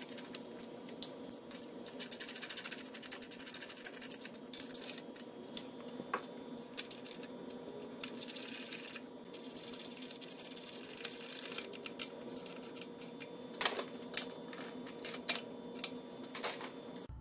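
Ratchet wrench clicking in quick runs as the bolts holding the outboard's lower unit to the midsection are run in, with scattered clinks of metal parts and tools. A steady hum sits underneath.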